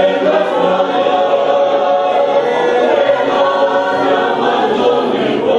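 Church choir singing together, many voices holding and gliding between sustained notes.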